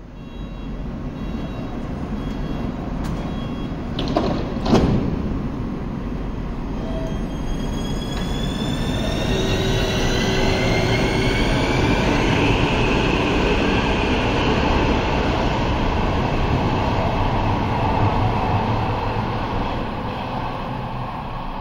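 Helsinki metro M300 train pulling out of an underground station. There are a couple of sharp knocks about four to five seconds in. From about seven seconds, several parallel rising whines from the traction motors sound over a steady rumble as the train accelerates away.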